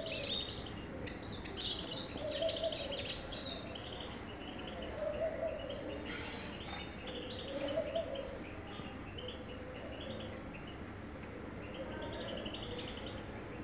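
Eurasian siskin singing: quick, high twittering phrases, densest in the first few seconds, with softer bursts later. Behind it a low call repeats about every two and a half seconds.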